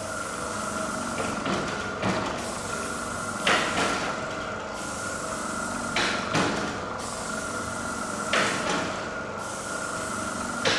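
A heavy hand-made marking tool, a drum-shaped container hung on chains, swinging like a pendulum across paper on a concrete floor. It knocks and scrapes, often as a quick double knock, about every two and a half seconds.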